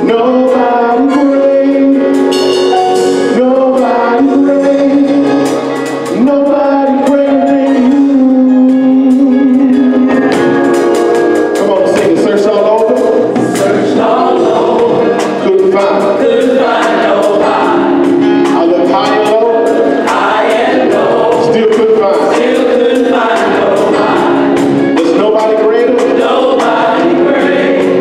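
Gospel choir singing live with a band of electric bass, drums and organ. Sustained chords for about the first ten seconds, then a steady driving beat under the voices.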